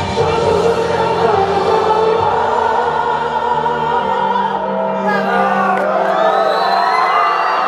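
Male singer singing live into a handheld microphone over a backing track, with long held, bending sung lines; the deep bass of the music drops out about four seconds in.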